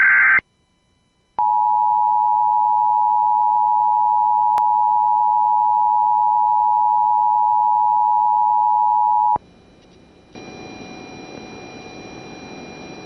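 The tail of an Emergency Alert System SAME data burst, then about a second of silence, then the EAS attention signal: a steady two-tone 853 and 960 Hz tone lasting about eight seconds and cutting off sharply. It marks the start of an emergency alert broadcast. A fainter steady hiss follows near the end.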